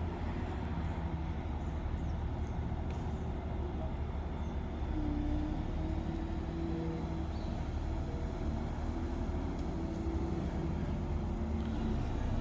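Large diesel engine of a crane running steadily under load, its engine note shifting a little about five seconds in.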